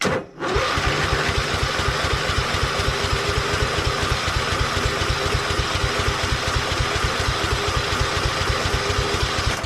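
Craftsman LT1000 lawn tractor engine cranking on the starter motor, with a rapid, even chugging for about nine seconds after a click at the start, without catching: the battery turns it over strongly, but the tank is out of gas.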